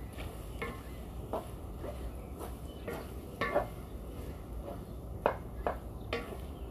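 Spatula scraping and clacking against a large aluminium wok as a heap of diced bopis is stirred. The clacks come irregularly, one every half second or so, with the loudest a little after five seconds in.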